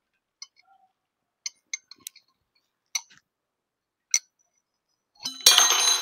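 Scattered light clicks and taps of a plastic bottle being handled. Near the end comes a short, louder scraping rush with a squeak as a water balloon is pulled out through the bottle's neck.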